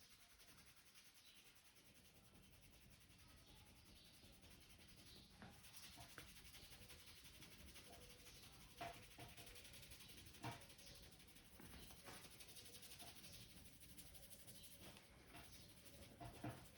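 Faint rubbing of hands on hair and scalp during a head massage, with a few short soft clicks scattered through it.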